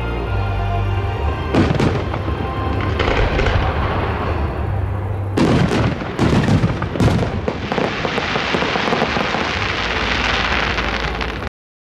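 Aerial firework shells bursting with sharp bangs, a quick cluster of them about five to seven seconds in, over music, then a dense crackling hiss from the spent bursts. The sound cuts off suddenly just before the end.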